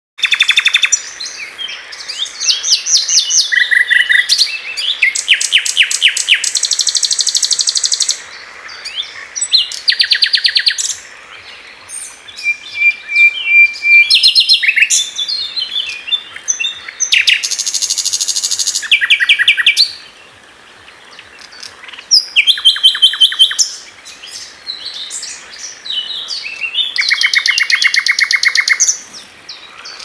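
Nightingale singing: a run of varied phrases, each a second or two of rapid repeated notes, rattles or pure whistles, with short pauses between them.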